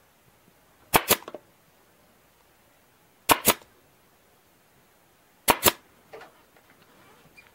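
Staple gun fired three times, a couple of seconds apart, each shot a sharp double snap, fastening the deer skin to the mount. Faint handling rustle near the end.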